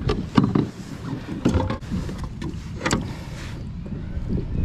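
A largemouth bass being handled on a plastic kayak deck and laid on a measuring board: a scattering of knocks, bumps and clicks against the hull, the sharpest near the start and around one and a half and three seconds in.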